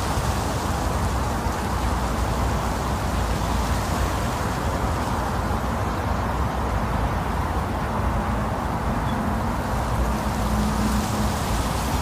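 Wind blowing steadily: a continuous rushing noise with a deep rumble underneath.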